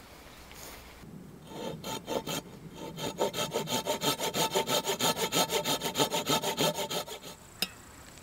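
Hand saw cutting through a round wooden dowel: a few slower strokes, then quick, even back-and-forth strokes about five or six a second. A single sharp knock near the end.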